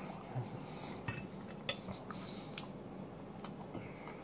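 A few soft, scattered clicks and clinks of a metal fork against a dinner plate while eating.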